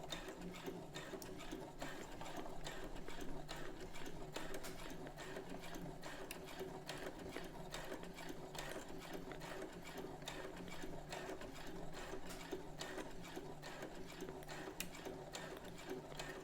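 Brother CS7000X computerized sewing machine running steadily as it stitches a seam, its motor hum carrying a rapid, even ticking of the needle strokes without a pause.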